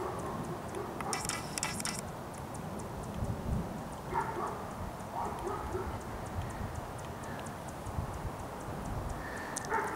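A dog barking in short bursts, a couple of times about four to five seconds in and again near the end, over a steady low rumble of wind and camera handling. A brief clattering rattle comes about a second in.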